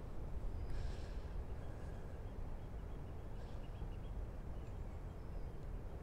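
Wind buffeting the microphone: an uneven low rumble. A brief faint rustle comes about a second in.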